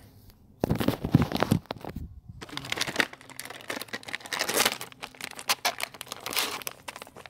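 Dog-treat packaging being handled and torn open: plastic crinkling and rustling with tearing. The loudest rustling comes from about half a second in to a second and a half, and there is a brief break around two seconds.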